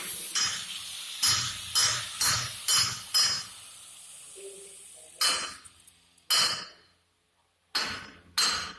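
Angle grinder on steel, its steady noise dying away, with about ten sharp metallic clanks that ring briefly. Six come in quick succession in the first three seconds, then four more are spaced through the rest.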